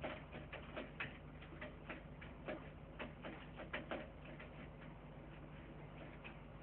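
Irregular quick clicks and ticks, thick for the first few seconds and then sparser, over a low steady hum.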